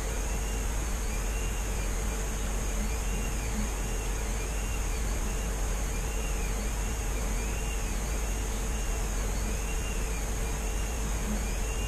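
Steady mechanical hum and hiss, with a faint whine that rises and falls about once every three quarters of a second.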